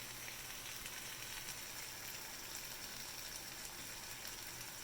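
Chicken and spices frying in a large pan, a steady sizzle with faint crackles.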